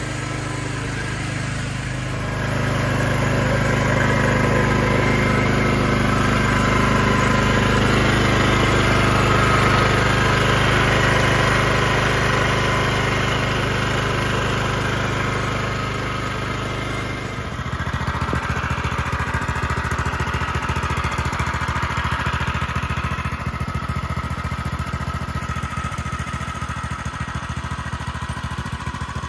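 Agria 3600 rotary tiller's single-cylinder Robin 6 hp petrol engine running steadily, getting louder about two seconds in. About two-thirds of the way through, the sound changes to a rougher, rapidly pulsing engine sound.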